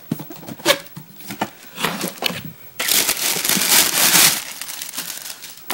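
Cardboard shoebox being handled, with a few sharp taps and scrapes, then tissue paper crinkling loudly for about a second and a half, starting about three seconds in.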